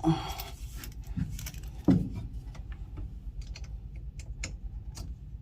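Hands working wire connectors and small metal parts: irregular clicks, light rattling and rustling as a wire is fitted to a terminal, with a single thump about two seconds in.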